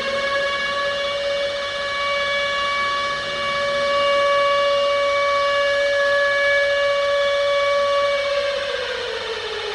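Civil defense siren sounding an attack warning: one long note held at a steady pitch, which winds down and falls in pitch near the end.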